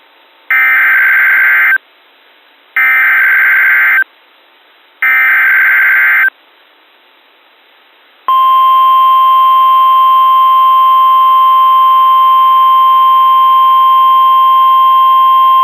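NOAA Weather Radio Emergency Alert System tones: three short bursts of SAME header data screech, each a little over a second long, then the steady 1050 Hz warning alarm tone starting about eight seconds in. Together they mark the start of a severe weather alert.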